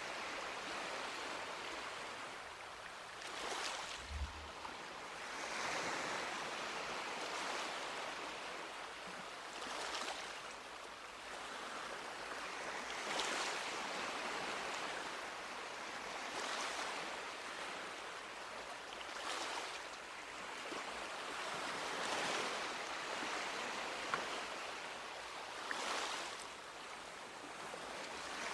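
Small sea waves washing up on a beach, each wave swelling and falling back about every three seconds over a steady hiss of surf.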